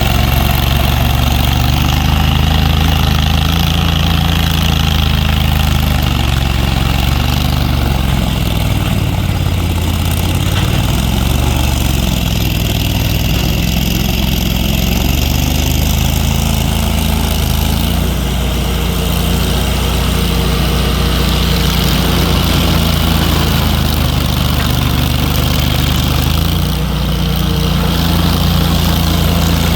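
A heavy engine running steadily around idle, its speed stepping up and down a few times.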